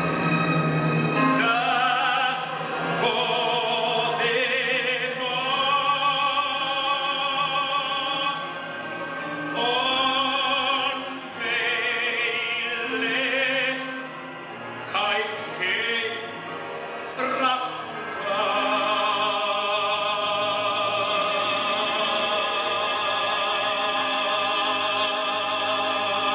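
A man singing solo in an operatic style with wide vibrato into a microphone and PA, in sung phrases broken by short pauses, ending on one long note held for about eight seconds.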